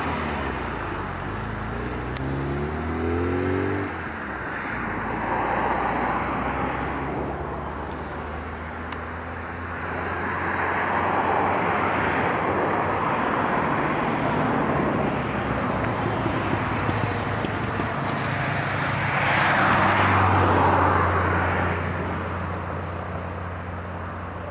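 A car driving: a steady engine hum under road and tyre noise, with the engine pitch rising briefly a few seconds in. The noise swells and fades several times.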